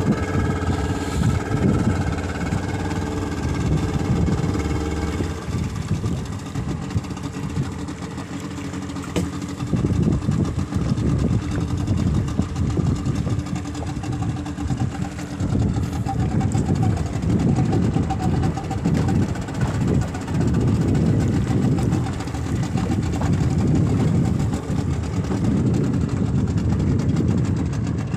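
Suzuki outboard motor running, a steady hum plainest in the first few seconds, then partly covered by an uneven low rumble that swells and fades.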